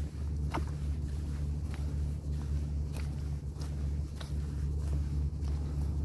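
Regular footsteps on wet, rippled beach sand at a steady walking pace, over a steady low hum.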